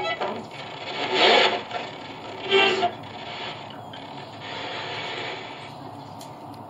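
Spirit box sweeping through radio stations: a hiss of static with two louder bursts of noise in the first three seconds, then steadier static.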